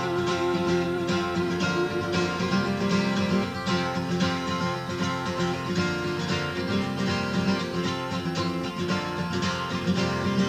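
Steel-string acoustic guitar strummed in a steady rhythm, a solo instrumental passage of a folk-country song played live.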